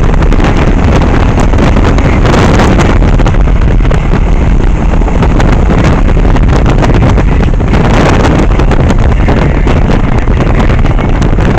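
Heavy wind rushing over the microphone of a motorcycle riding at highway speed, a steady loud rumble with the bike's running and road noise underneath.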